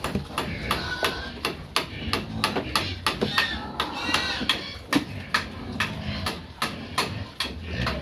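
Pigs in a pen: a sow and her piglets, with piglets giving short high squeals now and then. A rapid, irregular run of sharp knocks or clicks, several a second, goes on throughout.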